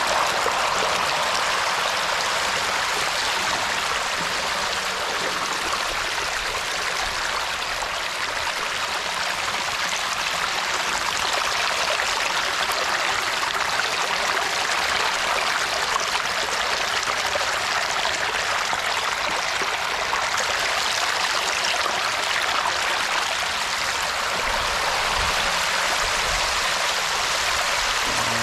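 Steady rush of flowing water, even and unbroken throughout.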